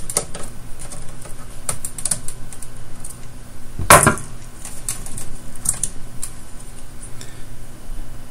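Small clicks and taps of a circuit board being handled and unplugged from its connector in an iMac G3 chassis, with one louder knock about four seconds in, over a steady low hum.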